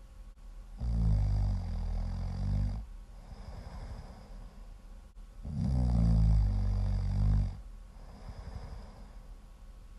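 Loud snoring: two long, pitched snores about four and a half seconds apart, with quieter fluttering breaths out between them.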